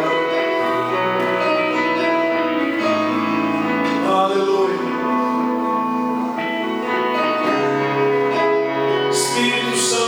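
Instrumental worship music: slow sustained chords, held and changing every second or two, with no speech.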